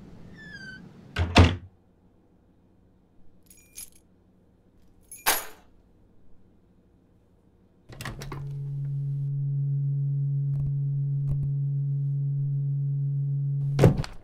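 A door shuts with a loud thunk, and a few seconds later keys clink. Then a steady low hum starts with a knock, runs about six seconds, and is cut off by a thump near the end.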